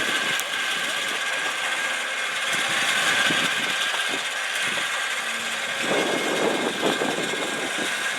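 An engine or motor running steadily, with a constant high whine over it.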